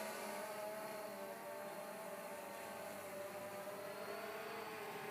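DJI Phantom Vision+ quadcopter in flight: the steady buzzing whine of its motors and propellers, the pitch wavering a little as it holds against gusty wind, with a hiss of wind behind it.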